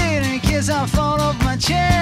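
Background music with a steady beat and pitched lines sliding up and down.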